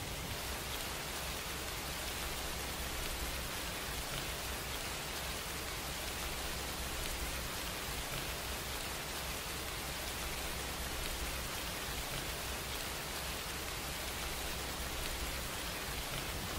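Steady, even hiss with no distinct strokes or knocks, unchanged throughout.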